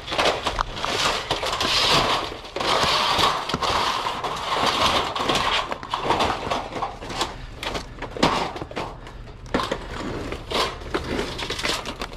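Junk in a dumpster being shoved and pulled loose by hand: irregular clattering knocks and scraping of items rubbing against each other.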